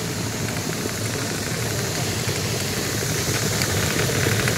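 A motor-driven air machine running steadily through a hose, air rushing at the flat nozzle as it is pushed through grain. From about four seconds in, the noise picks up fast fine ticking as kernels rattle against the nozzle.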